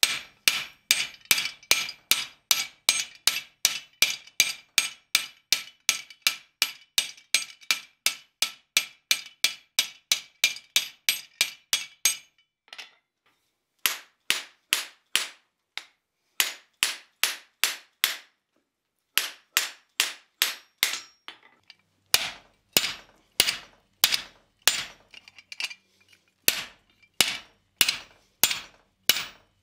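Hand hammer blows on hot steel bar stock at the anvil, partly on the top die of a guillotine tool, rounding up the stock for a rivet. A fast steady run of about three ringing strikes a second for some twelve seconds, then a pause, then short runs of strikes with breaks between them.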